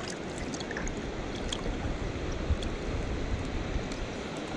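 Steady rush of river current flowing past a wading angler, with a few scattered faint ticks.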